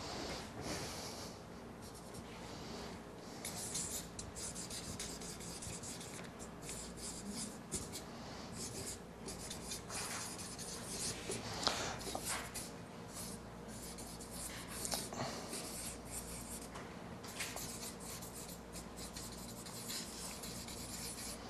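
Felt-tip marker writing on flip-chart paper: a run of short, irregular scratchy strokes.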